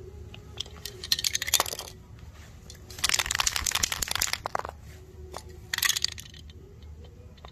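Aerosol spray can hissing and spitting in three short bursts as its valve is pressed down onto the valve of a second spray can to transfer its contents.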